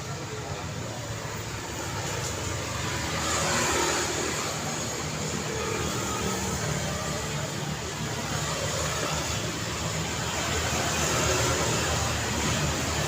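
Street traffic: a continuous wash of cars and motorcycles driving past, with a low engine hum, swelling as a vehicle passes about four seconds in and again near the end.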